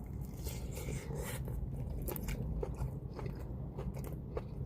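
A person biting and chewing a crisp fried egg roll drenched in plum sauce, close to the microphone: irregular crunchy clicks over a low steady hum.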